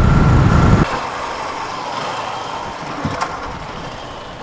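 Wind rushing over the microphone of a riding motorcycle, cutting off sharply about a second in. After that, quieter motorcycle and road noise fades as the bike slows into a parking area, with one brief knock about three seconds in.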